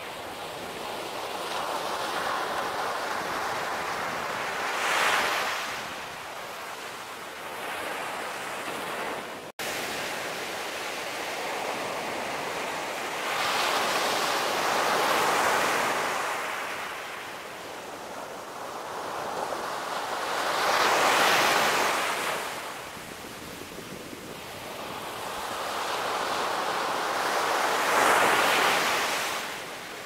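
Ocean surf breaking and washing up a sandy beach, the rush of each wave swelling and fading every several seconds. There is a momentary cut-out in the sound about a third of the way in.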